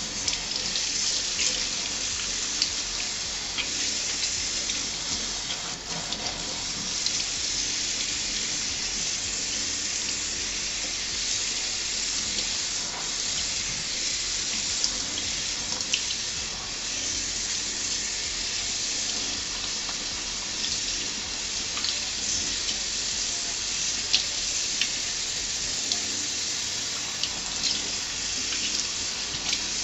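Kitchen faucet running steadily, the stream falling through hair onto a stainless-steel sink as the hair is rinsed by hand, with a few small splashes now and then.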